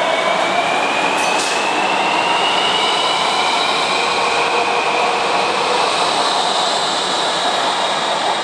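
CPTM electric multiple-unit commuter train running past along the platform, its traction motors whining in several tones that slowly rise in pitch as it accelerates, over the steady rumble of wheels on rail.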